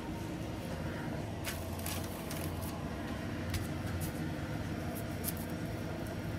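Soft scattered rustles and light clicks of gloved hands handling cooked rice and a sheet of seaweed, over a steady low background hum.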